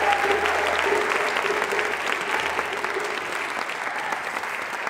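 Audience applauding, many hands clapping at once, slowly fading.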